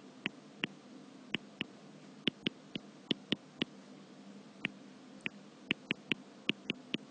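Stylus tapping on a tablet's touchscreen while numbers are handwritten: about eighteen short, sharp taps at an irregular pace, over a faint steady hum.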